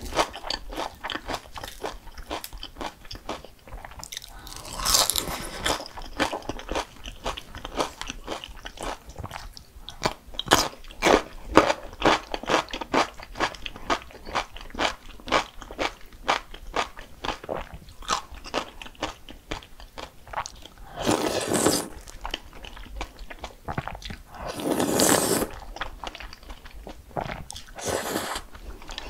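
Close-miked eating: many sharp, crunchy bites and chewing of crisp food, with a few longer rushing sounds of about a second in between.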